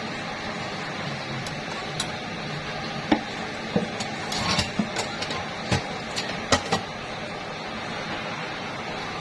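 Kitchen utensils and dishes clinking and knocking, a string of sharp clicks clustered in the middle, over a steady background hiss.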